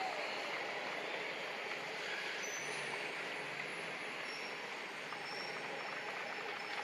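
Steady outdoor background noise, with a few faint high-pitched chirps.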